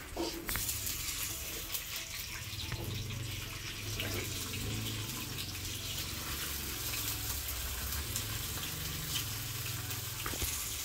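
Slices of beef loaf sizzling in hot oil in a frying pan, a steady hiss, with a few sharp clicks of a plastic spatula against the pan near the start and near the end.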